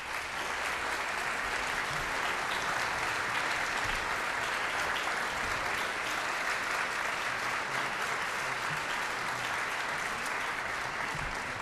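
Concert hall audience applauding steadily after an orchestral piece ends.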